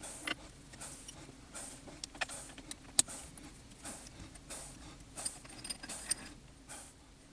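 Small metal parts or tools being handled: irregular clicks and clinks, the sharpest about three seconds in, with short rustles between and a faint metallic ring later on.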